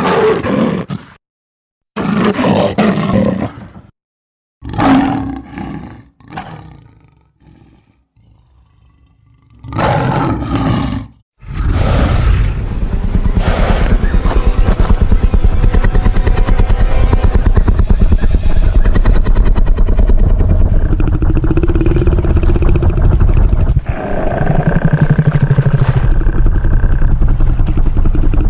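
Jurassic Park Tyrannosaurus rex sound effects: four separate short roars and growls with gaps of silence between them, then from about 11 seconds a long, unbroken, loud passage with a deep rumble.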